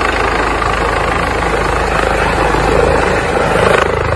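Helicopter sound, a steady rotor chop with engine noise.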